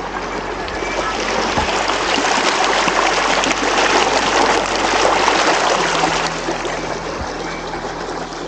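Water from a small mountain stream rushing and trickling over stones. The rush swells to its loudest around the middle and eases off toward the end.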